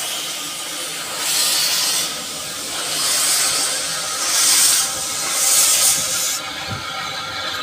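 Narrow-gauge steam locomotive pulling away, hissing steam with its cylinder drain cocks open. Four louder surges of steam come about a second and a quarter apart as it chuffs off slowly, and the hiss drops sharply near the end.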